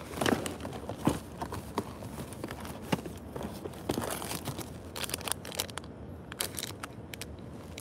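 Plastic trash bags rustling and crinkling as gloved hands rummage through them, with sharp crackles as a cardboard snack-bar box and a foil-wrapped bar are pulled out and handled.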